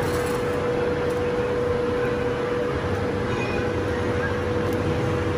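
Steady background din with a constant hum that does not change in pitch, and a few faint clicks.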